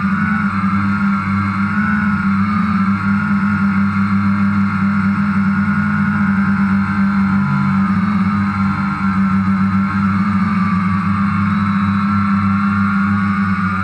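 DJI Phantom quadcopter's motors and propellers whining steadily in flight, several close tones wavering against each other as the rotors adjust speed.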